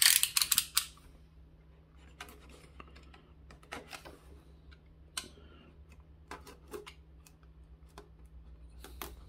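A snap-off utility knife's blade being pushed out, a quick run of loud ratchet clicks, then scattered quieter taps and scrapes as a cardboard box is handled and its tape seal is cut.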